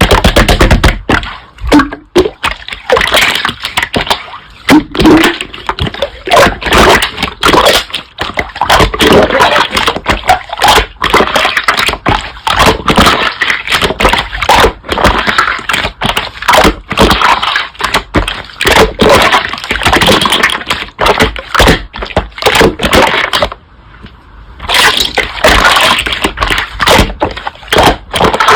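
Slime being squeezed and pressed by hand, giving a dense run of sticky crackles, clicks and pops, with a short lull near the end.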